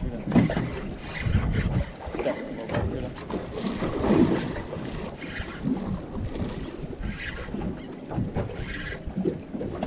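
Wind buffeting the microphone in uneven gusts, with water sloshing against the hull of a boat at sea.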